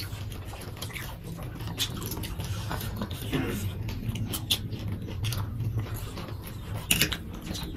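People chewing and biting food close to the microphone, with scattered light clicks of spoons, forks and chopsticks on plates, over a steady low hum.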